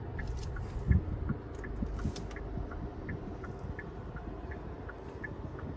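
Low steady rumble of a vehicle with a faint regular ticking, about three ticks a second, and one dull thump about a second in.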